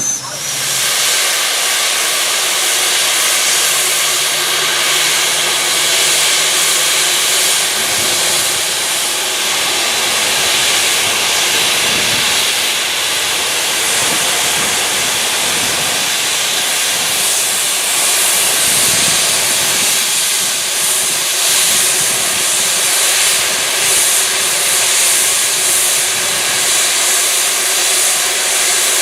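Steam locomotive venting steam: a loud, steady hiss that starts abruptly and holds without a break.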